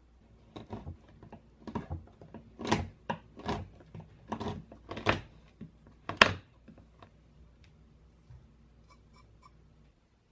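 Kitchen knife chopping a bar of dark chocolate on a wooden cutting board: about a dozen uneven chops, each a sharp knock of the blade through the chocolate onto the wood, the last and loudest about six seconds in.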